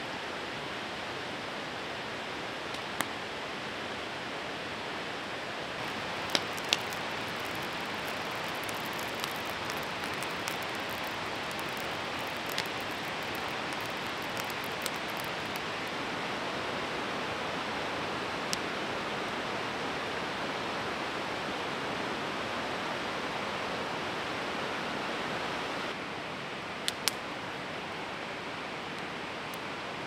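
Steady rush of a river flowing, with a scattering of short, sharp clicks and pops over it; the loudest come about six seconds in and near the end.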